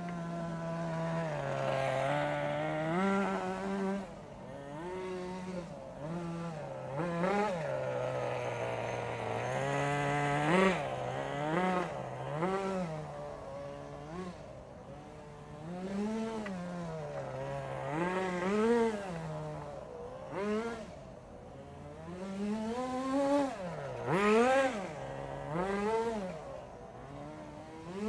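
The OS Max 10 FP-B two-stroke glow engine of a 1988 Kyosho Ford RS-200 nitro RC car running, its pitch rising and falling again and again as the throttle is opened and closed.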